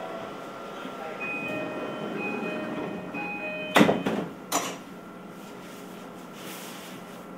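Doors of a Tokyu 6020 series electric train closing at a station stop: a few short electronic chime tones, then the sliding doors shut with two loud thuds about half a second apart. The car's air conditioning hums underneath.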